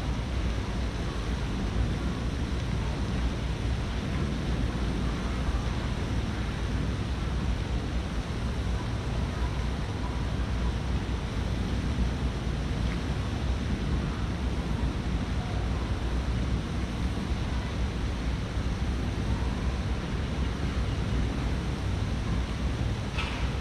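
Steady outdoor background noise with a heavy low rumble and no clear single source, with a brief faint higher sound near the end.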